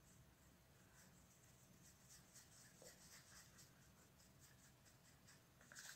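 Faint, quick repeated strokes of a makeup brush buffing liquid foundation onto the skin of the face, a slightly louder stroke near the end.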